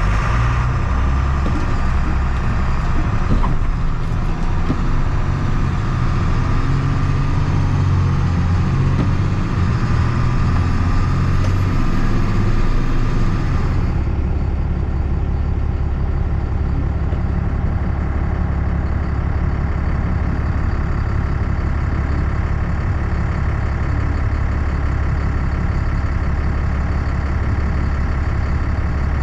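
Truck engine running while driving, its low hum shifting in pitch. About 14 seconds in the sound changes abruptly to a steadier, deeper engine drone.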